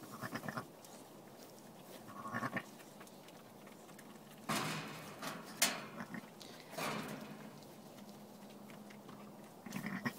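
Sheep calling over a newborn lamb: short, low, pulsing calls several times, near the start, about two and a half seconds in and near the end. Rustling in straw and a sharp click in the middle.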